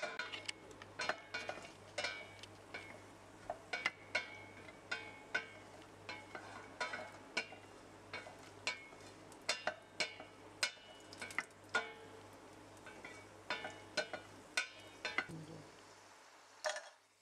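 A wooden spatula stirs cashew nuts frying in ghee in a stainless-steel pot, knocking and scraping against the pot about twice a second over a faint sizzle. A steady low hum runs underneath and stops near the end.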